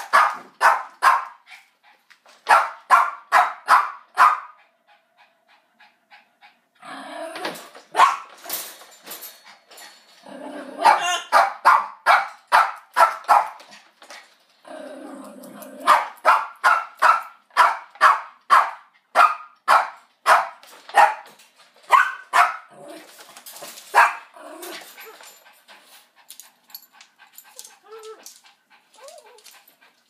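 Dog barking in rapid bouts of several sharp barks, about three a second, mixed with growling, dying down to a few faint sounds near the end.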